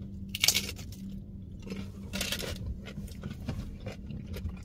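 Biting into a taco with one sharp crunch about half a second in, then chewing with soft, scattered crunches.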